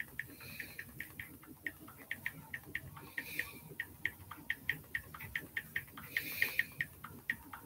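Light clicking of keys being typed on a computer keyboard, a quick run of about four to five clicks a second broken by short pauses.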